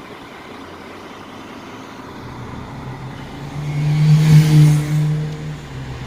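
Truck engine idling, then its note swells to a loud, steady hum for a couple of seconds about halfway through, with a brief hiss at the peak, before easing back.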